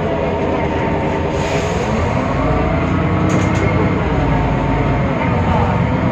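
Temsa Avenue LF city bus under way, its DAF PR 228 diesel and ZF Ecolife automatic gearbox running with a cluster of whining tones that rise and fall as the bus changes speed. This is the sound that is strange and different from the normal sound of these buses.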